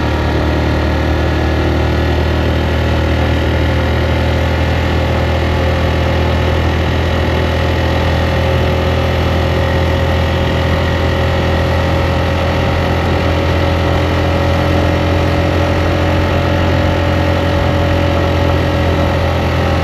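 Motorcycle engine running steadily at an even pitch while riding, with no change in revs, heard very loud and close from the rider's position.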